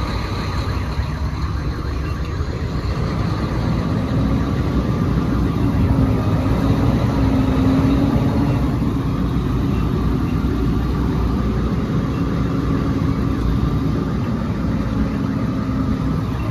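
Volvo semi-truck's diesel engine running at low speed, heard from inside the cab as the rig is manoeuvred slowly, a steady low drone with a steady hum and a slight swell in level about halfway through.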